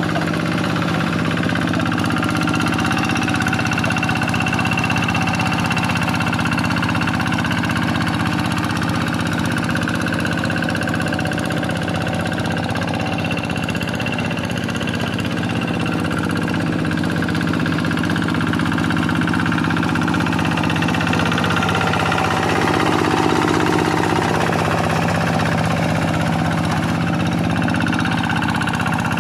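Quick G1000 two-wheel hand tractor's single-cylinder Kubota diesel engine running steadily while ploughing a paddy field, swelling slightly in level about 22 seconds in.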